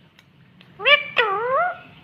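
Indian ringneck parakeet calling twice about a second in: a short rising note, then a longer one that dips and rises again.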